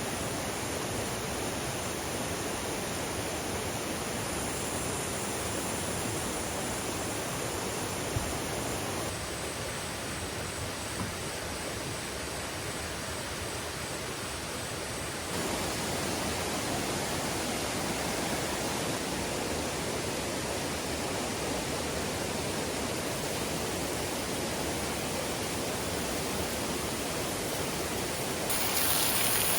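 Mountain valley stream rushing steadily, an even wash of running water; its tone shifts abruptly about nine and fifteen seconds in.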